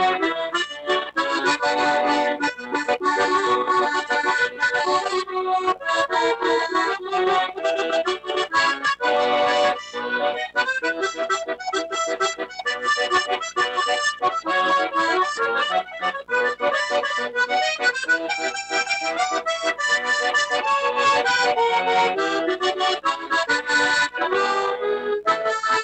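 Accordion playing an instrumental tune with many quick, short notes and no singing.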